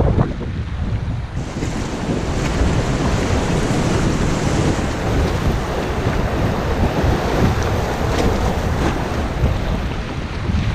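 River water rushing and splashing around an inflatable kayak, with wind buffeting the helmet camera's microphone.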